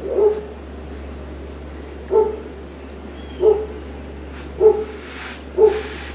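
Dog barking: five short barks spaced a second or so apart, over a steady low hum.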